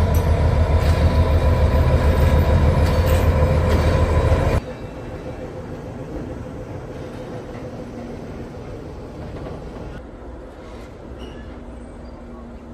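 Railway shunting: a locomotive's engine running loud and close with a steady low drone, then about four and a half seconds in the sound drops abruptly to a quieter, steady rumble.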